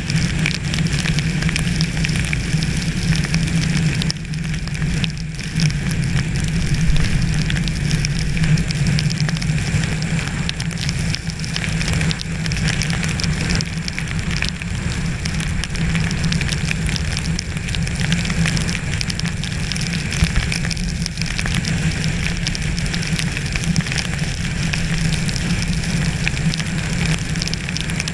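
Steady crackling patter of rain and sleet hitting surfaces, over a constant low rumble.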